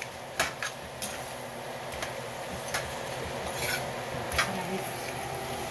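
A metal spoon stirring dried charales and egg in a frying pan, scraping and clicking against the pan several times at irregular moments, over a low steady hiss.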